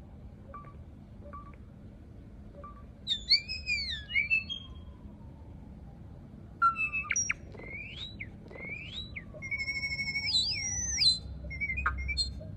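A songbird singing loud, varied whistled phrases with quick rising and falling pitch glides. A few faint short chirps come first, and the main song starts about three seconds in.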